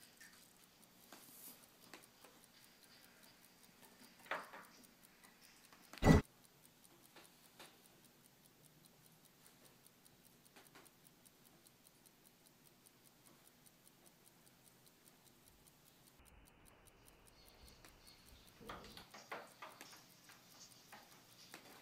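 Sparse, quiet clicks and ticks in an improvised experimental sound-art piece, with one sharp, loud knock about six seconds in and a denser run of clicks near the end.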